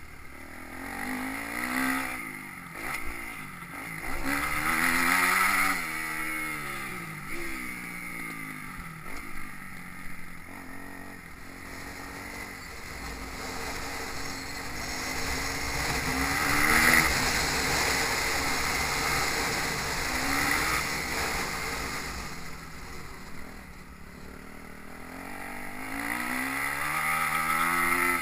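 Motocross bike engine repeatedly revving up and backing off, its pitch rising and falling over and over, with wind rumbling on the microphone.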